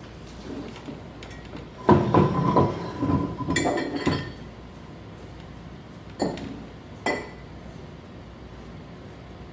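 Glassware and dishes clinking and knocking together: a quick run of knocks about two seconds in, one with a brief ring, then two more single knocks a few seconds later.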